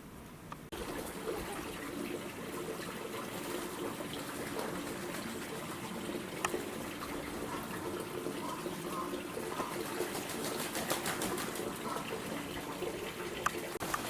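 Steady running water, with a few faint clicks.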